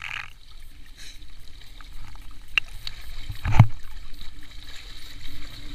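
River water sloshing and lapping as a wading man hauls a cast net up out of the water, with one louder low slosh about three and a half seconds in.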